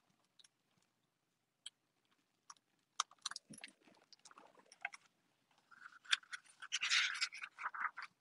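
Quiet handling of a hardcover picture book: scattered soft taps and clicks, then a denser rustle of the pages being turned from about six seconds in.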